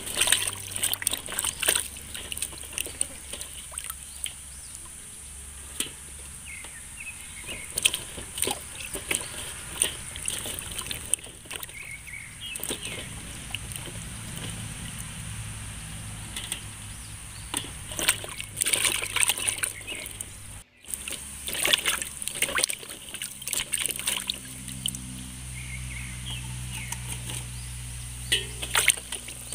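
Hands swishing and lifting vegetables in a metal basin of water: irregular splashes, sloshing and dripping, over a steady high hiss.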